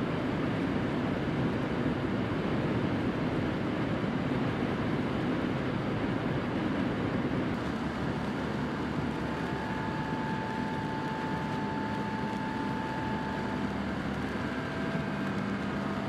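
Steady rushing road noise of a car driving on a wet, icy highway, heard from inside: tyres on the wet surface and wind over the body, with engine hum beneath. A faint steady whine comes in about halfway through.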